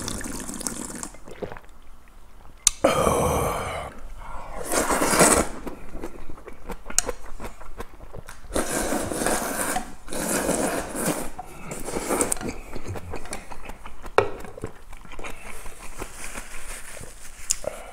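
Close-up eating sounds: a series of loud slurps of hand-cut kalguksu noodles and broth, a few seconds apart. A sharp click of a bowl or chopsticks comes a couple of times.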